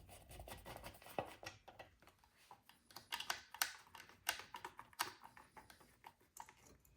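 Irregular light clicks and taps of small parts and hand tools being handled during motorcycle reassembly work.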